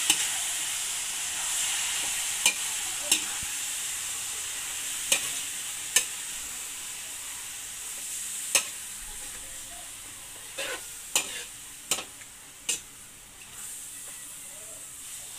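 Food frying and sizzling in a pan as it is stirred, with a cooking utensil knocking sharply against the pan about ten times. The sizzle slowly fades.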